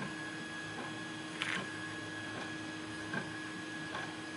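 A few faint, light clicks from small parts being handled, the clearest about one and a half seconds in, over a steady electrical hum with a thin high tone.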